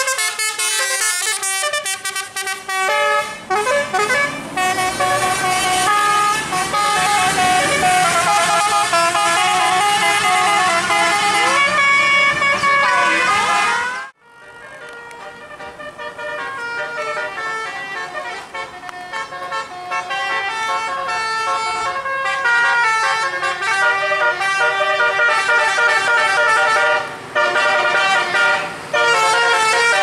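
Bus telolet (basuri) horns, several pitched tones stepping from note to note and playing a tune. The tune cuts off suddenly about halfway, then another telolet tune starts softly and grows louder.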